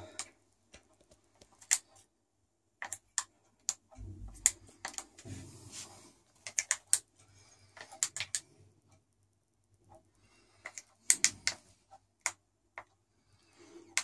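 Buttons on a toy RC submarine's small handheld remote clicking irregularly as it is steered forward and back, with a brief low handling rumble about four seconds in.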